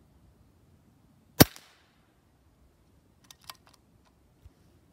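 A single sharp shot from a regulated Diana Outlaw .22 PCP air rifle, a crack with a short ring-out. About two seconds later come a few quick metallic clicks as the side lever is cycled to load the next pellet from the magazine.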